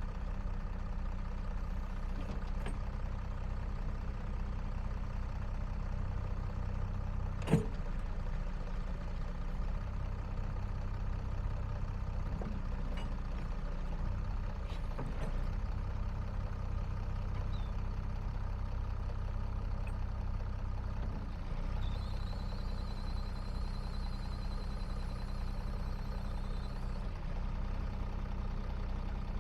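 John Deere 544A wheel loader's diesel engine idling steadily, with one sharp click about a quarter of the way in. A thin high tone sounds for about five seconds near the end.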